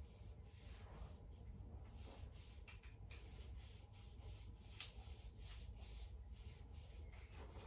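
Small paint roller with yellow paint being pushed across paper in short strokes, a faint rubbing stroke every second or so, several in a row.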